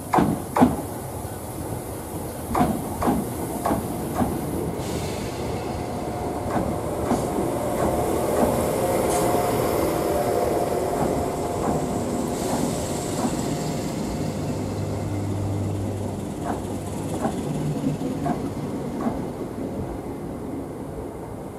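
A Greater Anglia Class 321 electric multiple unit drawing slowly into a terminus platform. Its wheels click over rail joints, and a rumble swells as the carriages pass, with a faint steady whine in the middle.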